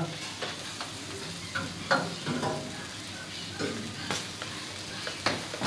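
Whole lamb sizzling on an iron grill grate over wood embers, with a few sharp knocks and scrapes as the grate is pulled out from the fire.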